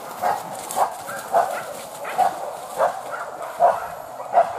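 Hunting dogs barking on a wild boar chase: a quick, uneven string of about seven short barks.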